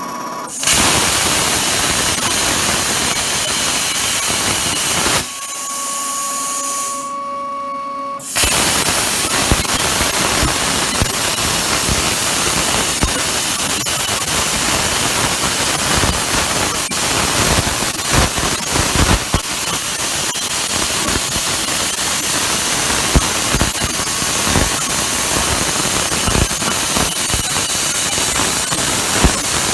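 CNC plasma cutter torch cutting: a loud steady hiss with crackle. The arc cuts off about five seconds in, leaving a steady electric whine, and starts again about three seconds later, then runs on.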